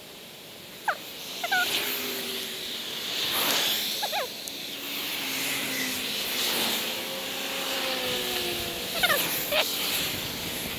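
Cars passing on a wet road, their tyres hissing and swelling as each goes by, with several short chirping bird calls over it.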